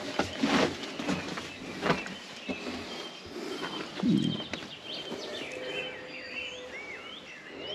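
Footsteps scuffing over loose rubble, a few irregular steps, with small birds singing; the birdsong is clearest near the end.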